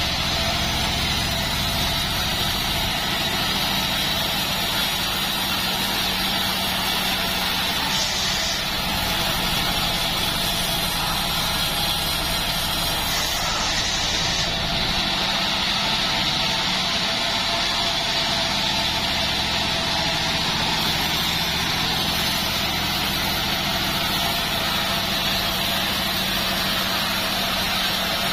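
Band sawmill running steadily, its blade sawing lengthwise through a joar wood log, over the machine's even low hum and a steady hiss.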